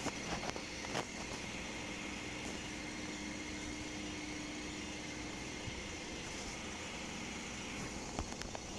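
Steady background hum and hiss with a few faint clicks.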